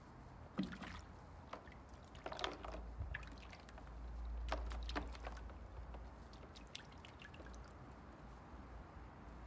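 Scattered light splashes and drips of water in a shallow plastic paddling pool, with a low rumble between about four and five and a half seconds in.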